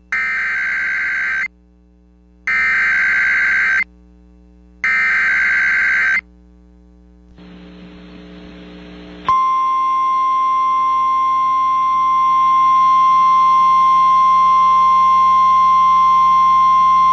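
Emergency Alert System broadcast opening with its digital header: three short bursts of warbling data, each about a second and a half, with short gaps between them. After a moment of hiss, a single steady alert tone starts about nine seconds in and holds, signalling a National Weather Service severe thunderstorm warning.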